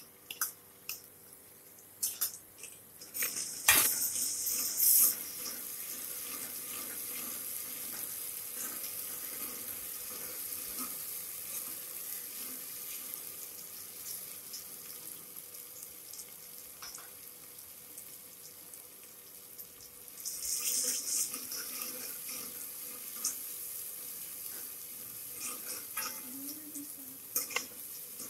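Ginger-garlic paste sizzling in hot oil with browning onions in an aluminium pot: a loud burst of sizzle about four seconds in as the paste hits the oil, then a steady hiss. A steel ladle clicks and scrapes against the pot while stirring, with another loud spell of sizzling about two-thirds of the way through.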